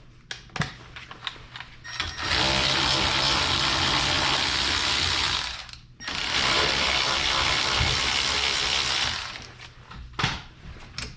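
A hand-held power tool runs twice, each run about three and a half seconds with a brief stop between, spinning out the two loosened 14 mm caliper bracket bolts. A few light metal clicks come before and after the runs.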